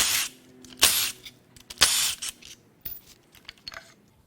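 Three short hissing bursts about a second apart, then a few light clicks and rattles, as the bolts of the oil pump on a Ford 4.6L DOHC V8 are worked loose.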